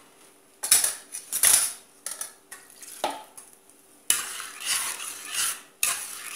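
A metal spoon stirring beans in a stainless steel pot, scraping and knocking against the pot's sides in irregular strokes, with a longer run of scraping from about four to five and a half seconds in.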